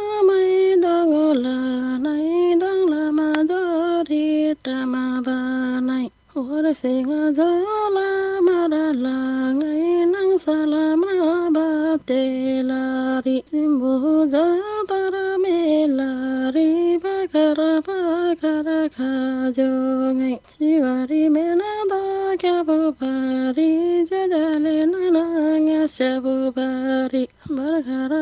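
A woman singing a Tamang jatra folk melody solo, in slow phrases of long, wavering held notes with brief breaks for breath.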